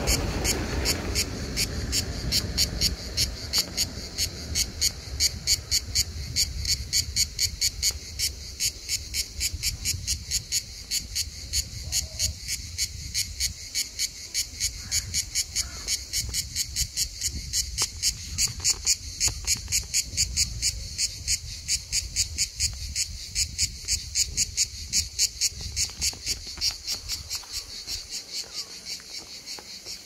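Cicada singing: a loud, high-pitched rhythmic pulsing that repeats evenly, growing fainter near the end.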